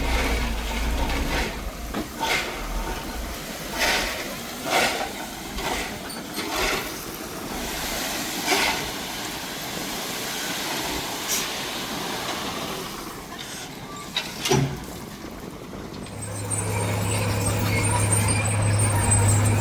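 Heavy earthmoving machinery at work: a diesel engine running under a noisy clatter, with a sharp knock or squeak every second or two. About three-quarters of the way through, a steady low engine drone comes in.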